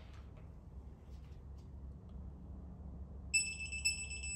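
Electronic beep of a digital torque wrench: a steady high tone starts about three seconds in and holds for over a second, signalling that a cylinder-head bolt has reached its 25 ft-lb target. Before it come a few faint clicks from the wrench working the bolt.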